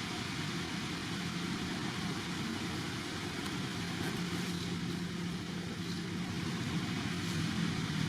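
Steady low engine-like hum with a constant thin high tone above it, even throughout with no distinct events.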